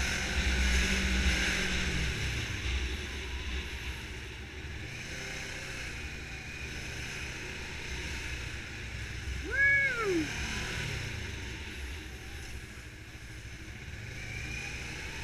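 Kawasaki Ninja sport motorcycle engine running through traffic, its pitch slowly rising and falling as the throttle opens and closes, under wind noise on the camera microphone. About ten seconds in a short, loud whine rises sharply and falls away.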